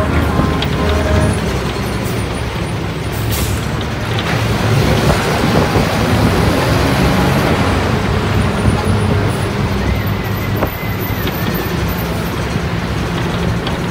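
Street traffic: a motor vehicle's engine running close by over a steady roar of traffic noise.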